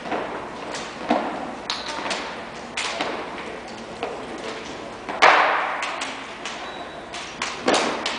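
Drill rifles slapped in the hands and struck against a hardwood gym floor during armed exhibition drill: a series of irregular sharp clacks and thuds echoing through a large hall, the loudest about five seconds in and again near the end.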